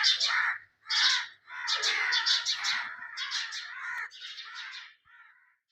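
Birds giving harsh, rapid, repeated calls in clustered runs, growing fainter and stopping near the end.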